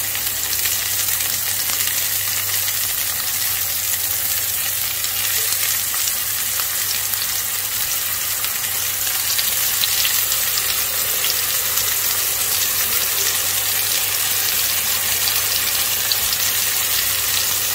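Spice-marinated brinjal (eggplant) slices shallow-frying in hot oil in a non-stick pan: a steady sizzle with dense crackling. It grows a little louder about halfway through.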